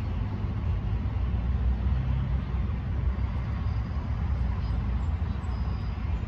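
Wind buffeting the microphone: a steady low rumble that flutters unevenly.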